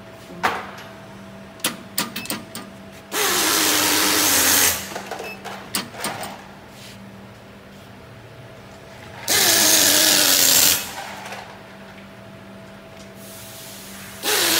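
A power tool running in three bursts of about a second and a half each, its pitch dropping as each burst begins. Sharp clicks and knocks fall in the first few seconds, over a steady low hum.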